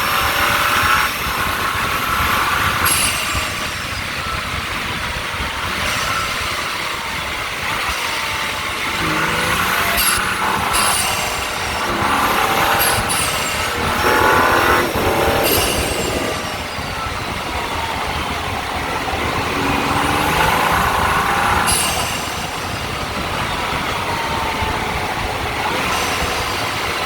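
BMW M135i's turbocharged N55 straight-six pulling hard and lifting off, heard from the front of the car: the engine note climbs with the revs several times, each pull carrying a high rising turbo whistle that cuts off suddenly when the throttle closes, then falling away between pulls.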